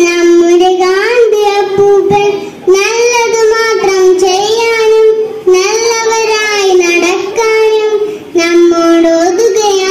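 A young girl singing a Malayalam children's song solo into a microphone, holding long notes with short pauses for breath between phrases.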